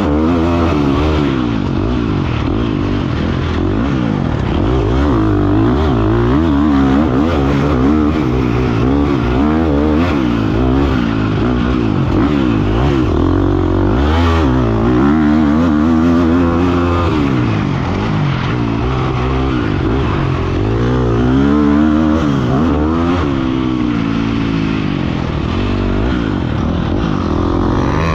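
Husqvarna FC350 four-stroke single-cylinder motocross bike engine heard from on the bike, revving up and falling back again and again as the rider accelerates, shifts and slows for corners around the track.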